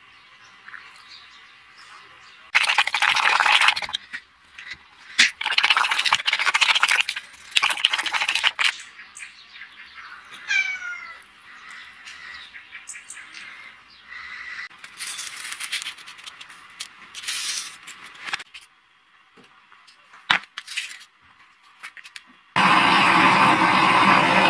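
Several bursts of scraping in the first part, a short run of falling squeals about ten seconds in, then near the end a homemade gas-cylinder forge starts up loud: a steady rushing roar of flame from its mouth.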